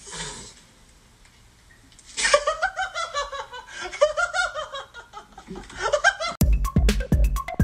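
A person laughing in a run of high-pitched giggles for about four seconds. Near the end, electronic music with a hard, regular beat cuts in abruptly.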